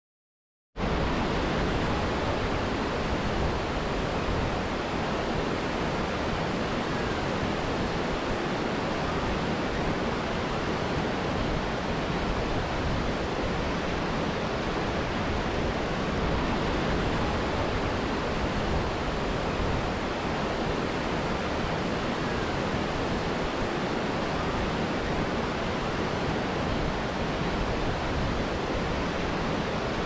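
Steady rushing of falling water, starting abruptly about a second in.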